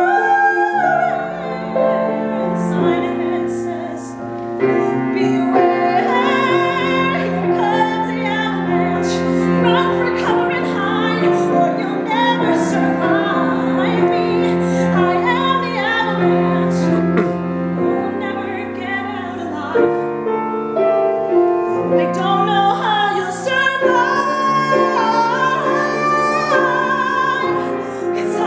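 A woman singing a musical-theatre ballad in a trained voice, accompanied by a grand piano.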